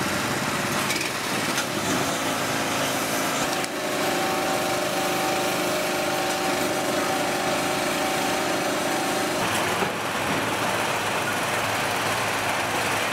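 High-pressure washer running: a small engine's steady drone under the hiss of the water spray. A steadier pitched whine joins for about five seconds in the middle, then drops away.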